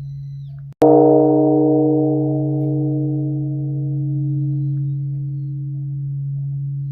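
Korean Buddhist temple bronze bell (beomjong) struck once, about a second in, by a swung wooden log. The strike sets off higher overtones that fade over several seconds over a deep hum. That hum also runs on from the bell's previous stroke before the strike.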